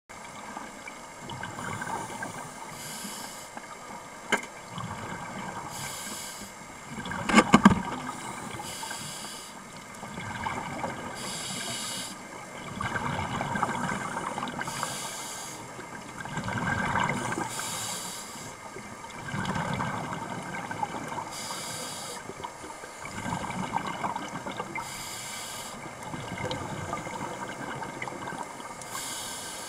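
Scuba breathing heard underwater: a regulator hiss every few seconds alternating with bubbling exhalations. A sharp knock comes about four seconds in, and a louder clatter a few seconds later.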